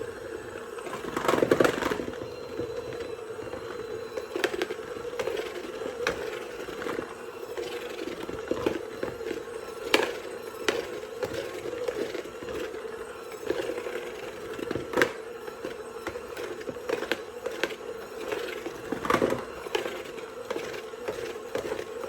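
Bread dough being kneaded by hand on a countertop: irregular soft thumps, slaps and squishes as it is pushed and folded, over a steady background hum.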